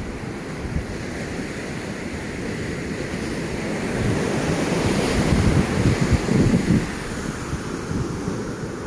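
Ocean surf washing up a sandy beach, with wind buffeting the microphone. The rush swells louder for a few seconds around the middle, then eases back.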